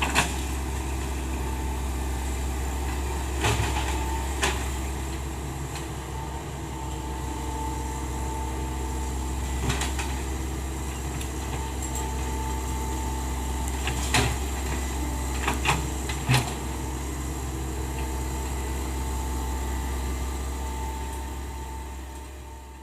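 Hitachi Zaxis 110 excavator running steadily, with a whine that comes and goes and several sharp knocks. The sound fades out near the end.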